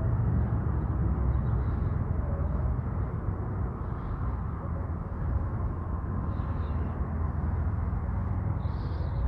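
Outdoor ambience: a steady low rumble, with a few faint high chirps now and then.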